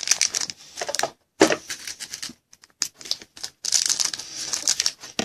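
Foil-wrapped trading card packs being handled and shuffled by hand, with crinkling and quick irregular clicks. The sound is dense at the start and again toward the end, with one sharper click about a second and a half in.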